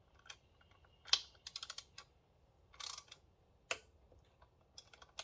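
A torque wrench ratcheting and clicking as bolts are tightened to 55–60 inch-pounds: a row of sharp, separate clicks and short ratchet rattles, the loudest click about a second in.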